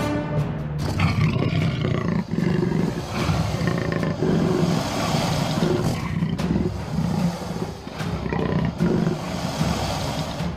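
A big cat roaring and growling in a long series of rough calls, over background music.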